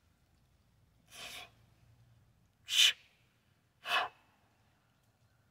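A man's short, forceful breaths of exertion during a heavy one-arm kettlebell press: three quick breathy blasts a second or so apart, the second the loudest.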